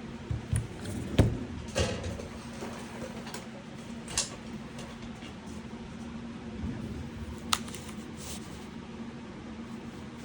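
A keyboard being handled: a few knocks in the first two seconds, a click about four seconds in and a sharp click about seven and a half seconds in, over a steady low hum.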